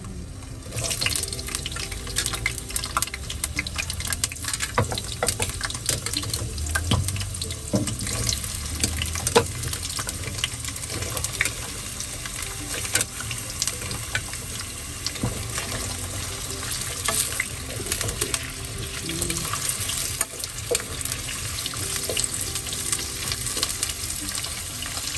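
Potato and carrot pieces frying in hot oil in a wok: a steady sizzle with many crackling pops, starting about a second in as the vegetables go into the oil.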